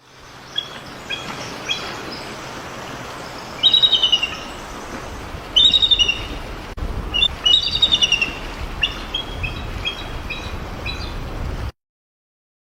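Wild birds singing in a forest: short high chirps and several louder fast-trilled song phrases repeated at intervals, over a steady background hiss. The sound cuts off abruptly near the end.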